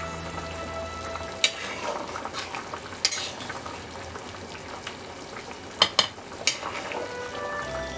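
Chicken curry bubbling and sizzling in a metal pan while it is stirred with a metal spatula. The spatula knocks against the pan about five times, a pair of sharp knocks coming close together about six seconds in.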